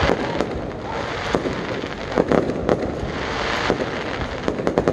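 Aerial fireworks display: shells bursting in an irregular series of sharp bangs, about a dozen, more closely bunched near the end, over a continuous hiss.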